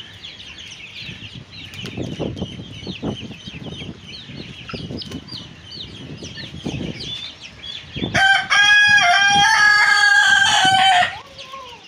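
Young chickens peeping continuously with many short high calls, then a rooster crows once, loud and about three seconds long, starting about eight seconds in and trailing off with a short falling note.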